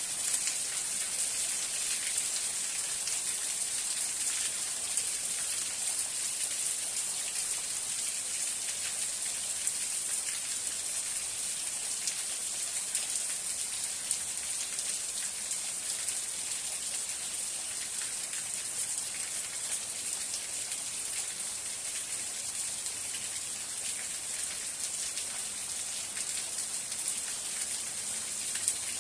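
Steady rain falling: an even, high hiss with scattered sharper taps of single drops.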